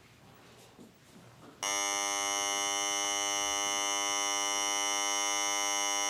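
Studio cue buzzer sounding one long, steady, harsh buzz for about four and a half seconds. It starts suddenly a second and a half in and stops abruptly.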